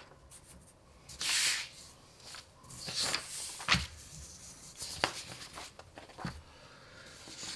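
Sheets of paper rustling and sliding over a desk as they are handled, in several short bursts, with a few sharp taps; the sharpest is a little under four seconds in.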